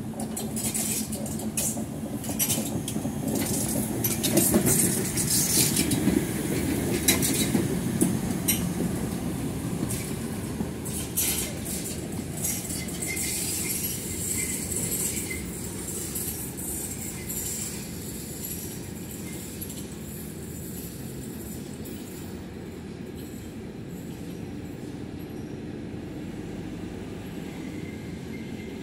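Class 35 steam locomotive 35 1097-1 running light past at low speed, with a rumble and irregular clicks and clanks from its wheels and running gear over the rail joints. It is loudest about five to eight seconds in, then fades as it runs away.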